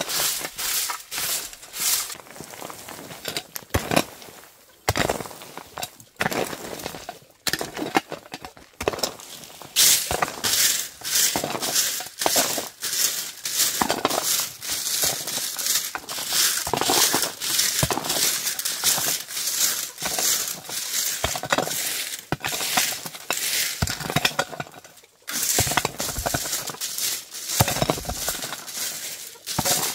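Irregular crackling and crunching from hands-on work: many short, sharp noises, several a second, with two brief lulls.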